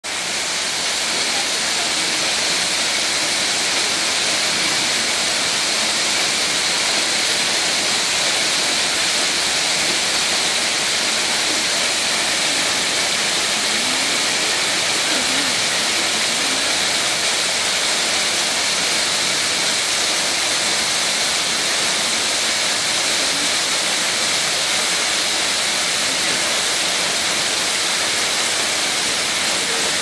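Narrow waterfall pouring down a rock face and splashing onto stones: a steady, unbroken hiss of falling water.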